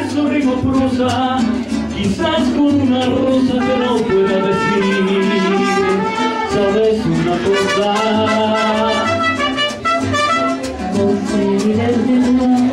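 Live mariachi band playing: trumpet over strummed guitars with a pulsing bass.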